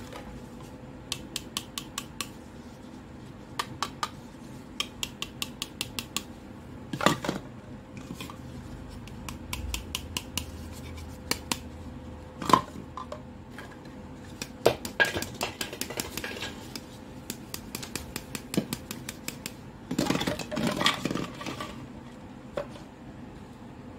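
Hollow plastic toy fruits clicking and clacking as they are handled and knocked against each other: runs of quick light taps, a few louder knocks, and a busier flurry of clattering near the end.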